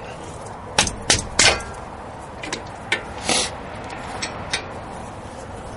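Metal clinks and knocks of hand tools against the brake assembly while its bolts are fitted, a handful of sharp strikes spread irregularly, the loudest a quick group about a second in.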